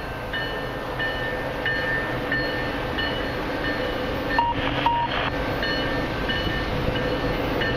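Canadian Pacific freight train approaching from a distance: a steady rumble from the locomotives and cars, with faint high tones that come and go and two short beeps about halfway through.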